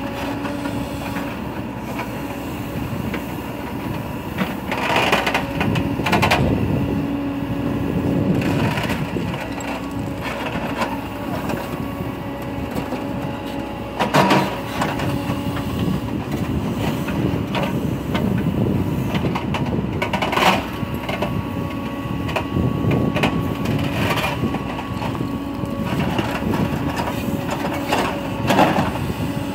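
Cat 428F backhoe loader digging. Its diesel engine runs steadily while the bucket scrapes and crushes through soil and broken rubble, with several sharp knocks and cracks where the bucket strikes stones.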